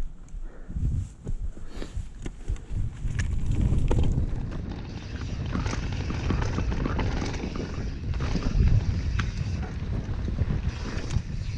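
Transition Patrol mountain bike descending a rough, dusty trail at speed: wind buffeting the microphone over the rumble of tyres on loose dirt, with frequent sharp clicks and knocks from the bike over bumps. The rumble grows louder a few seconds in as the bike picks up speed.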